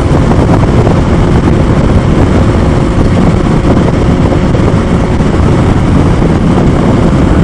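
Steady wind rush and motorcycle drone at well over 70 mph, heard through a Bluetooth headset's helmet microphone.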